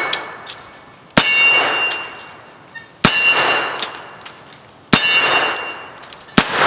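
Four rifle shots from a CMMG Guard 45 ACP carbine with a muzzle brake, fired semi-automatic at a slow, steady pace about two seconds apart. Each sharp report is followed by a metallic ringing that dies away.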